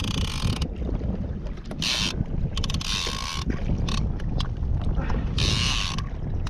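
Fishing reel drag paying out line in four short rasping bursts as a hooked fish pulls, over steady wind noise on the microphone.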